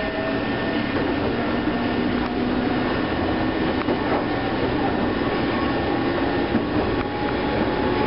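Eizan Electric Railway one-man electric train running along the track, heard from inside the car: a steady running noise with a low whine held over it.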